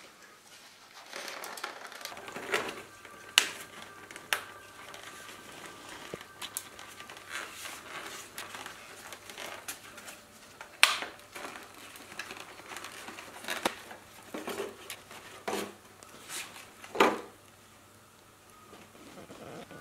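Thin clear plastic clamshell container crinkling and crackling as gloved hands grip, lift and tilt it, with irregular sharp cracks of the plastic, three of them louder than the rest.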